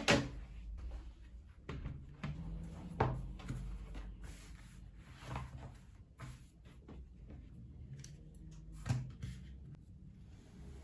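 Objects being handled and set down on a desk: irregular knocks, taps and rustling. The loudest knocks come at the start and again about three and nine seconds in.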